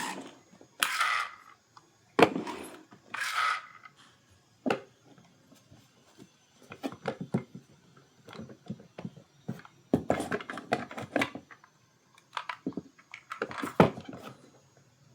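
Diecast toy cars and their packaging being handled: two short rustling swishes of plastic or cardboard, then many small clicks and taps as the pieces are moved and set down.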